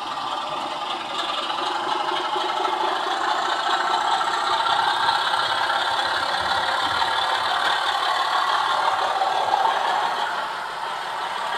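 An OO gauge model train running on the track, its motor and wheels making a steady mechanical running and rattling sound. It grows louder in the middle and eases near the end.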